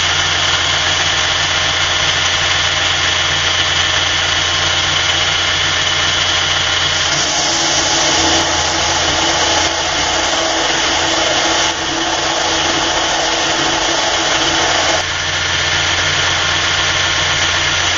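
Burr King belt grinder running steadily with its motor hum; from about seven seconds in until about fifteen seconds in, a steel knife blade is held against the belt at the platen, adding a grinding hiss as the blade is tapered.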